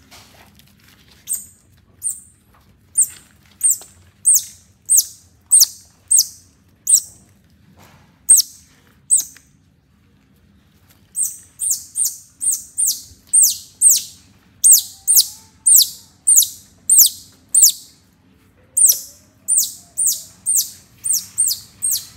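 Baby otter calling: a long series of short, shrill, very high chirps, each sliding down in pitch, about one to two a second, with a brief pause about halfway through.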